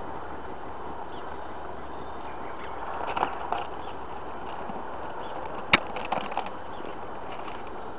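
Steady hum of honeybees from an open hive. Paper rustles and crackles about three seconds in and again around six seconds, as the newspaper sheet laid over the frames to unite two colonies is lifted and torn, with one sharp crack about six seconds in.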